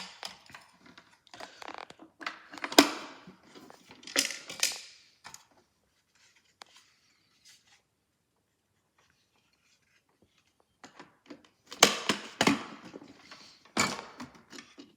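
Plastic toy washing machine parts being handled and screwed back together: scrapes, clicks and knocks in two spells, with a quiet stretch in the middle.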